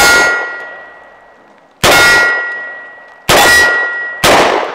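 Four revolver shots at steel plate targets. Each hit is followed by the steel ringing on with a clear metallic tone that fades slowly. The first three shots come about a second and a half apart, and the last follows less than a second after the third.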